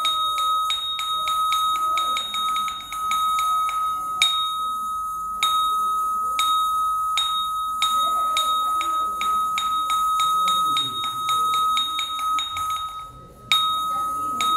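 A metal bell, struck repeatedly with one ringing tone. Its strokes speed up into a fast roll that ends in a single strong stroke, then carry on at a slower, steady pace, with a murmur of voices underneath.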